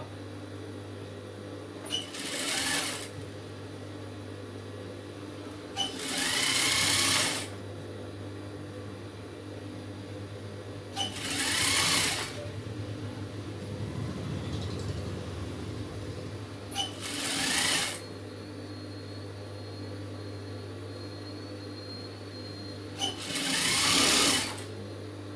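Industrial single-needle sewing machine stitching fabric in five short runs of about a second each, each run starting with a click, with a steady low hum between the runs.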